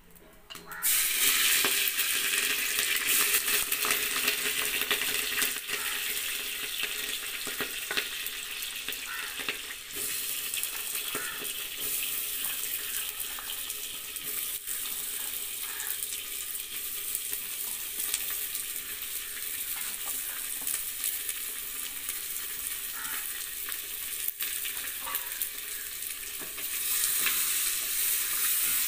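Chopped onions and green chillies dropped into hot groundnut oil in a clay pot, sizzling as soon as they land about a second in, then frying steadily while a wooden spatula stirs them. The sizzle eases after about ten seconds and grows louder again near the end.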